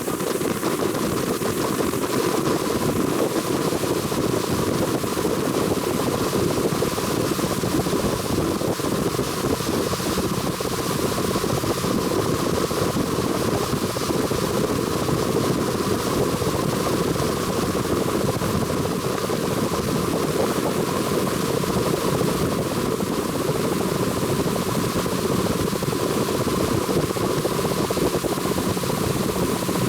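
An engine running steadily, with wind rushing over the microphone.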